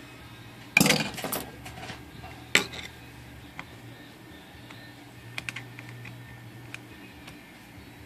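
Metal clatter of a steel screwdriver and typewriter parts handled on a workbench: a quick cluster of clinks about a second in and one sharp clink a moment later, then a few faint ticks as the screwdriver tip is fitted to the mainspring drum.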